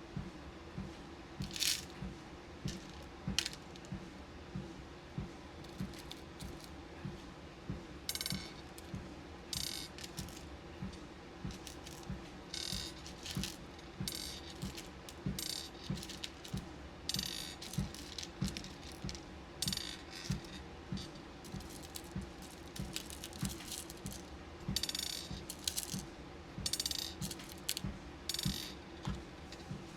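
Beads and pins clinking and rattling in short bursts as they are handled and sorted, over the steady hum of a walking pad and regular soft footfalls on its belt.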